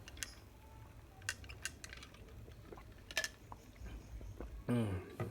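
A few light, separate clinks and clicks of a drinking glass being handled, over a low steady hum.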